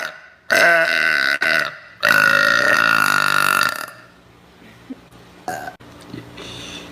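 A young woman burping loudly twice: a short burp about half a second in, then a long drawn-out one of about two seconds.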